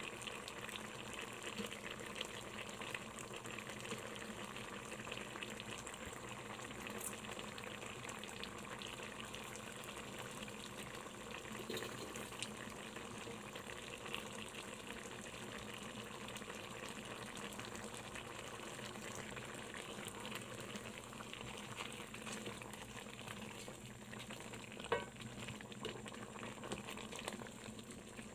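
Shrimp simmering in coconut-milk sauce in a pan: a steady bubbling sizzle. A single light click of a utensil or the pan comes near the end.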